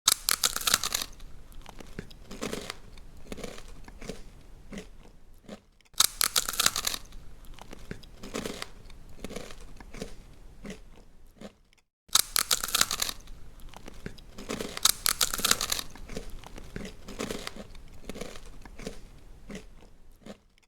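A rabbit chewing and crunching food in quick, rhythmic crunches. The sound breaks off briefly twice, about six and twelve seconds in, and each time starts again with a loud, crisp bite.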